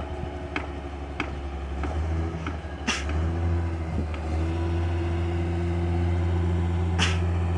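Single-cylinder diesel engine of a two-wheel hand tractor (jetor) running steadily while it ploughs a wet rice paddy. A few faint ticks come early on, and two sharp clicks stand out, about three seconds in and near the end.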